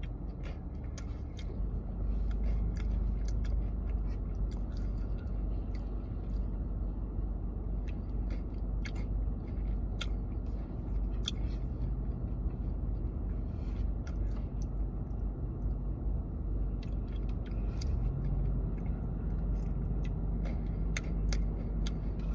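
Close-up eating sounds: chewing and crunching on a curry soup topped with crackers, with scattered short clicks and crunches throughout.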